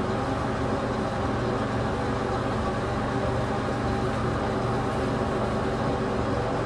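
A steady machine hum with faint constant tones, unchanging throughout.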